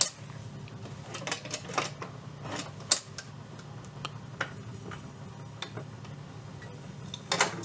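Philips AG 1025 record changer running through its automatic change cycle: a steady motor hum with scattered clicks and knocks from the changer mechanism and tonearm, one sharper click about three seconds in and a louder knock near the end.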